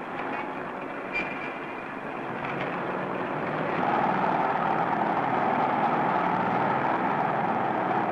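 Vintage car engine and street traffic on an old film soundtrack, growing louder about four seconds in as the car drives into a road tunnel. A short click about a second in.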